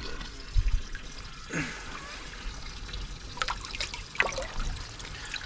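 Water trickling steadily, with a few short, sharp sounds on top.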